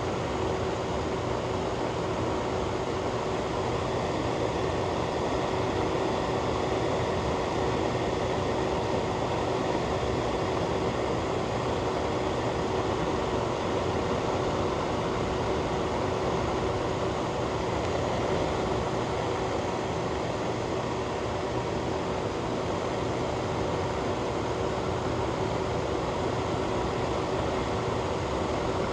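Ventilation fan running steadily: an even rushing of air with a constant hum in it.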